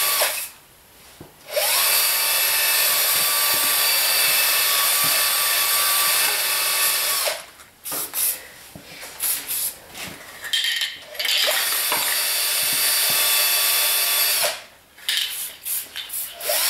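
Aerosol spray paint can hissing in long sprays, stopping and starting sharply, with a run of short spurts in the middle.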